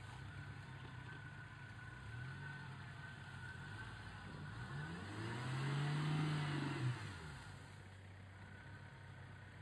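Opel Frontera's engine running steadily off-road. It revs briefly about two seconds in, then pulls up to a longer, louder rev and falls back as it drives through a muddy dip. A single sharp knock comes near the top of the rev.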